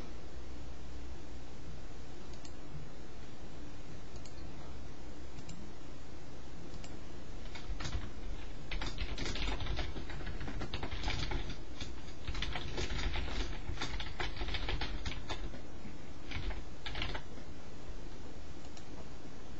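Typing on a computer keyboard: a few scattered key clicks, then a dense run of rapid keystrokes from about eight seconds in until about seventeen seconds, over a steady background hum.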